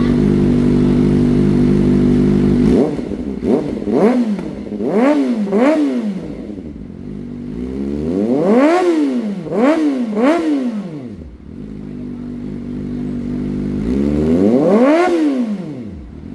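Kawasaki ZX-4RR inline-four with a slip-on exhaust, idling steadily and then given quick throttle blips: three revs, then three more, then one, each rising and falling straight back to idle.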